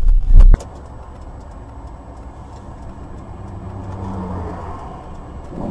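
A loud low rumble cuts off suddenly about half a second in. After it comes a car's steady engine and road noise, which swells slightly around four seconds in.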